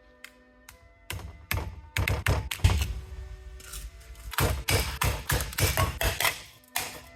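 A string of sharp taps and thunks, sparse at first and coming fast after about four seconds, with background music.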